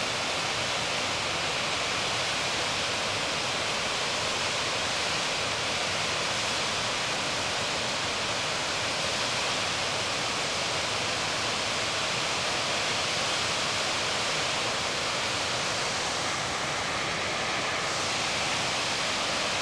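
Water pouring over a concrete dam spillway and churning white in the channel below: a steady, even rush of falling water.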